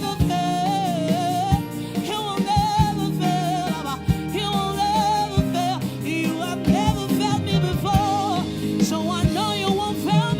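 Gospel worship song performed by a choir with a live band: voices singing wavering melodic runs over held chords, with regular drum hits.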